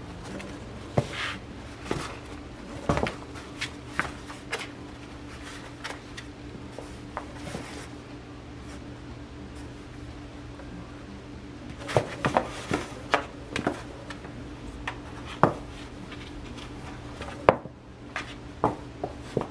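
Cats' paws and claws scrabbling, tapping and thumping on a flattened cardboard sheet during play, in irregular flurries of scratches and knocks with a sharper knock near the end.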